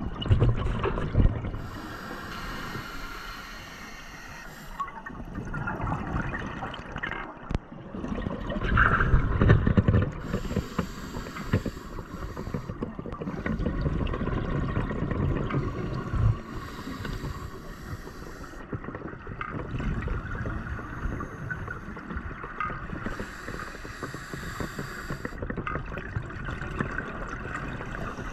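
Scuba diver breathing through a regulator underwater: a hiss with each inhale and a bubbling rumble with each exhale, repeating about every six or seven seconds.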